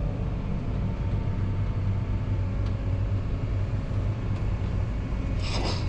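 Farm tractor engine running steadily under load, a low even rumble as it pulls grain wagons. A short burst of higher noise comes near the end.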